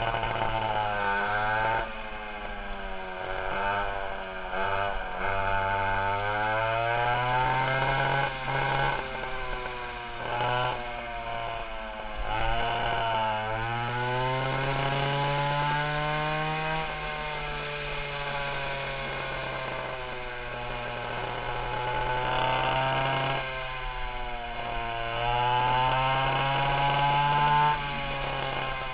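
Twin two-stroke 820 chainsaw engines of a vintage go-kart running hard, their pitch repeatedly rising under acceleration and dropping off as the throttle is let off.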